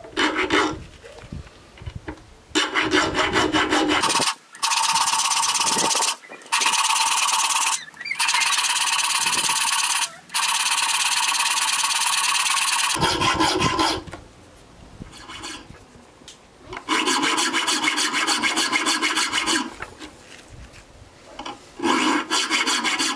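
Round file rasping notches into the spine of a 4 mm N690 stainless steel knife blade, in long runs of quick strokes broken by short pauses.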